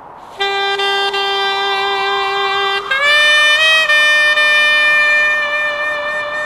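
A reedy wind instrument plays long held notes. It holds a low note for about two and a half seconds, then slides up to a higher note with a brief bend, and holds that note to the end.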